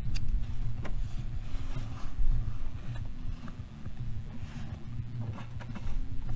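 Honda CRF1100L Africa Twin's parallel-twin engine running with a steady low rumble, with a few light clicks over it.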